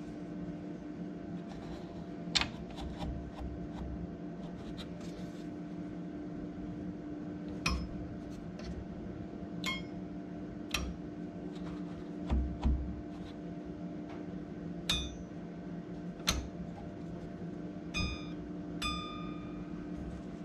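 DeWalt 788 scroll saw at work: a steady hum with about ten sharp metallic clinks scattered through it, several ringing briefly, and a couple of dull knocks about two-thirds of the way in.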